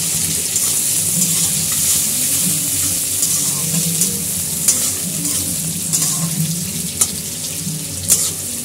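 Sliced onions sizzling in hot mustard oil in an aluminium kadai as they are stirred with a metal spatula. A few sharp clicks in the second half are the spatula knocking and scraping against the pan.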